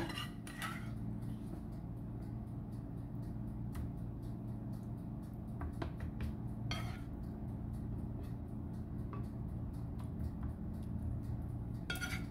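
A serving spoon scraping and tapping now and then against a frying pan as thick barbecue sauce is spooned out, with a few faint clicks spread through, over a steady low hum.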